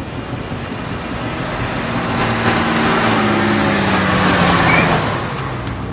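A bus's engine and road noise grow louder over a few seconds, its low hum sinking a little in pitch, then fade away near the end.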